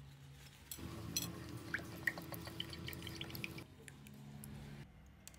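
A milky drink poured from a carton into a glass of ice cubes: the liquid runs in while the ice clicks and pings against the glass for about three seconds, starting just under a second in.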